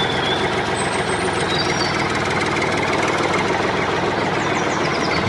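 A motor or engine running steadily, an even rumble with a fast low pulsing under a dense hiss.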